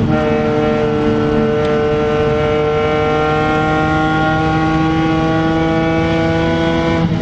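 BMW Z4 M Coupé's S54B32 3.2-litre straight-six accelerating in one gear, heard from inside the cabin. Its pitch climbs slowly and steadily, and the sound breaks off near the end.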